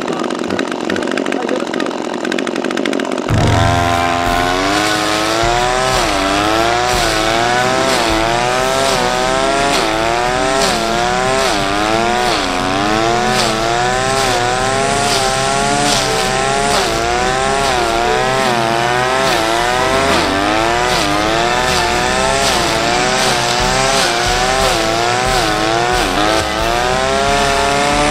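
Brush cutter fitted with a shredder blade, its engine revving up and dipping about once a second as the blade bites into a pile of thick, woody weeds, with sharp chopping hits throughout. The engine comes in abruptly about three seconds in.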